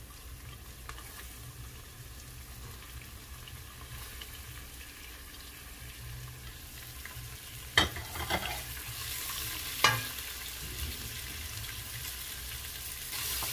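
Chopped onion, ginger and garlic sizzling in olive oil in a stainless steel pot while a wooden spoon stirs them. Two sharp knocks about eight and ten seconds in, and the sizzle grows louder near the end.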